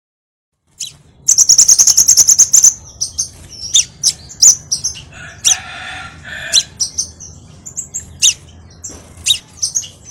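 Scarlet minivet calling: high-pitched chirps that start about a second in with a fast run of repeated notes, followed by scattered sharp, separate chirps.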